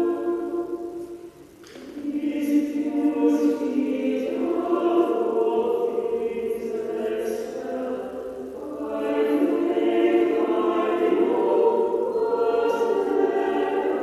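A choir singing held, slow phrases, with a short break between phrases about a second and a half in.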